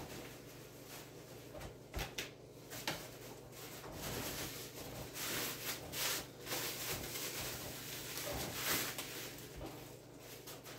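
Plastic wrapping rustling and crinkling as it is pulled off the plucker's legs, with a few light knocks from the parts being handled.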